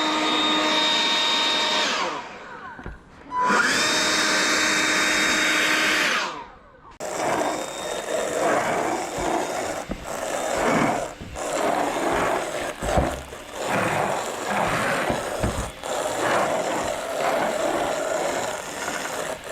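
A motorised blower or vacuum, the kind used to clear pine needles from a gutter, running with a steady whine. It is switched off about two seconds in, restarts a moment later, and stops again around six seconds. After that comes an uneven rushing noise with a few knocks.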